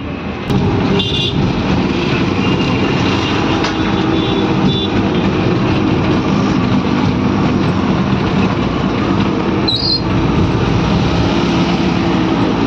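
Auto rickshaw running through traffic, heard from inside its open cabin: a steady engine drone with road noise. A brief high beep comes about a second in and another about ten seconds in.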